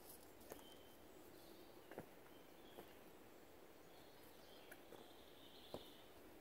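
Near silence: quiet woodland ambience with faint bird chirps and a few faint, scattered clicks.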